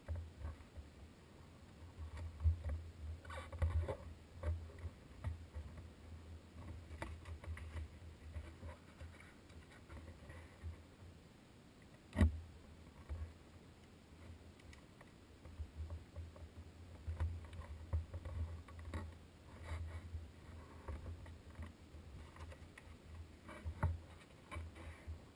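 Hands working a small notebook on a desk: irregular rubbing, brushing and soft low bumps against the tabletop, with scattered clicks and one sharp knock about twelve seconds in.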